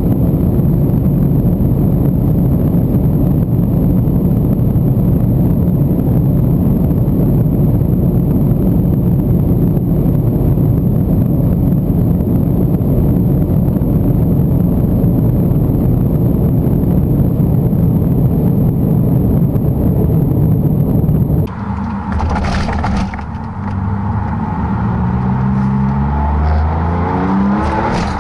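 Tuned Porsche 996 Turbo's twin-turbo flat-six, with larger turbos and a custom exhaust, at sustained high speed: a steady, dense rush of engine, wind and road noise. After a sudden change about three-quarters of the way through, the engine is heard accelerating, its pitch rising again and again.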